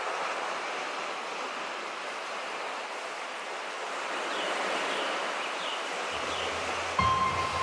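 Sea waves washing steadily on the shore, with a few faint chirps a little past the middle. Soft music with a held low note comes in near the end.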